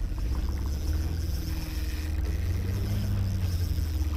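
Boat engine running steadily, a low hum that wavers slightly in pitch, with a wash of water noise over it.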